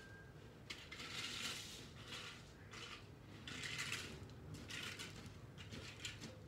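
Gravel crunching and scraping in irregular bursts, each under a second or so, over a low steady rumble.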